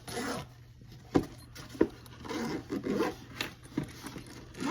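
Pistol case being handled and opened: rubbing and scraping with several sharp clicks, the loudest about a second in.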